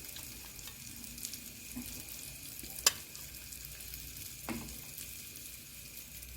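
Oil sizzling and crackling steadily in a frying pan, with a sharp click about three seconds in and a knock a second and a half later.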